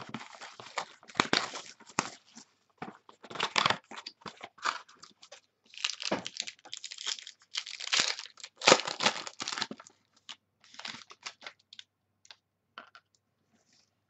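Plastic wrapping on a pack of football trading cards being torn open and crinkled by hand: irregular crackling and tearing that thins to a few small rustles near the end.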